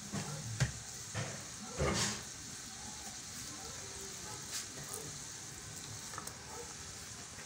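Steady hiss from a pot of hot water on the stove, with a few brief handling sounds, the loudest about two seconds in, as lumps of fermented cassava dough are put into the water to pre-cook.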